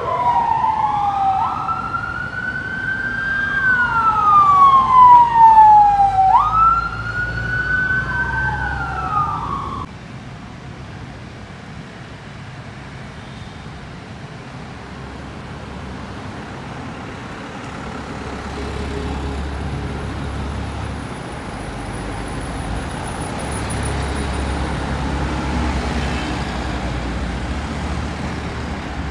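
Police escort siren wailing in slow rising and falling sweeps, loudest a few seconds in, that cuts off about ten seconds in. After it, a column of minibuses drives past with a steady engine and tyre rumble.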